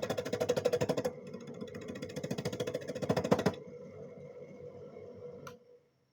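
Carang mas machine running with a fast, even rattle of about ten strokes a second over a steady motor hum. The rattle stops about three and a half seconds in; the hum goes on fainter for about two seconds more, then cuts off.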